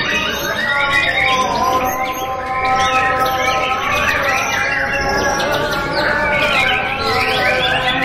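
Many caged songbirds singing at once: a dense chorus of overlapping whistles, trills and chirps.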